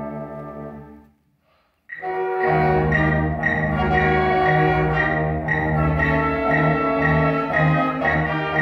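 A school band playing under a conductor: a held chord fades away about a second in, a brief silence follows, then the band comes back in together with a steady rhythmic pulse in the low instruments.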